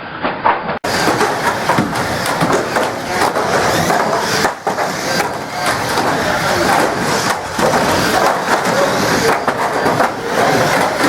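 Banger-racing cars running hard in a race, engines and tyres over a steady din, with frequent knocks and bangs of bodywork as the cars hit one another.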